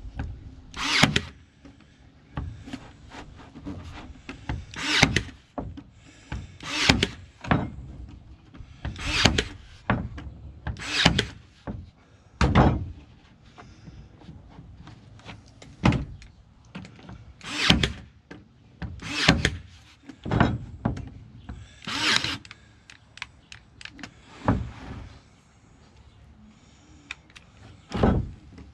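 Ryobi 18V One+ AirStrike cordless 18-gauge brad nailer driving brads into a wooden strip, one sharp shot per trigger pull in sequential mode. About a dozen shots come a second or two apart, with a couple of short pauses.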